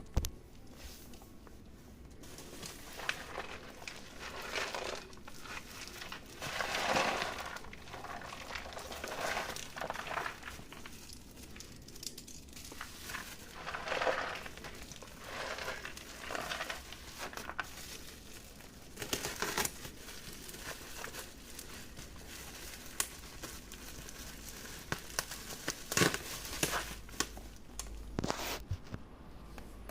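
Parcel packaging crinkling, rustling and tearing in irregular bursts as it is unwrapped by hand, with a few sharp clicks near the end.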